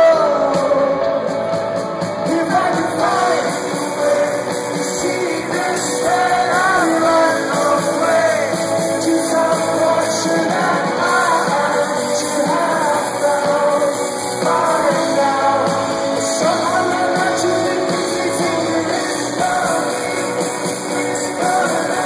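Live rock band playing, with a male lead singer over electric guitars and drums, recorded from within the crowd.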